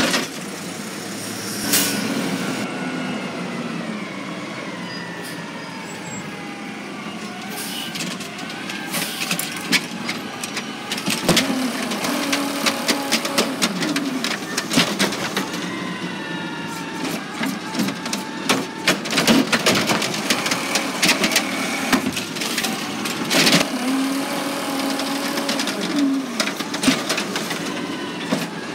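Automated side-loader garbage truck, natural-gas powered, working its hydraulic side arm: the engine and hydraulics whine up and down in pitch as the arm lifts, tips and lowers carts. Repeated sharp bangs and knocks come as the carts are shaken and the trash drops into the hopper.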